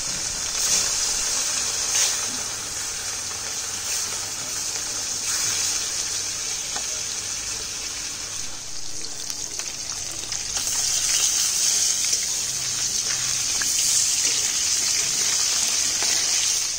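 Pieces of rohu fish sizzling as they fry in hot oil in a kadai: a steady hiss that grows louder in the second half.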